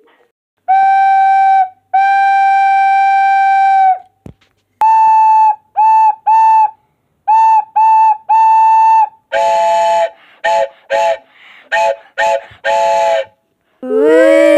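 Steam locomotive whistles blown one after another. First come two steady single-note blasts, then six short and long toots on a slightly higher single note, then a chime whistle of several notes in a run of short toots. Near the end a deeper chime whistle comes in, its pitch sliding up before it holds steady.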